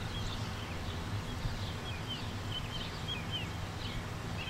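Small birds chirping in short, scattered high notes over a steady low outdoor rumble.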